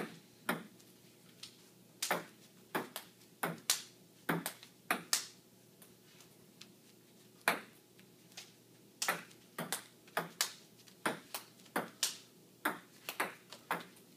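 Table tennis ball clicking back and forth in a rally, struck with Rubik's cubes instead of paddles and bouncing on the table: quick sharp ticks a third to half a second apart. There is a break of about two seconds in the middle, then another rally.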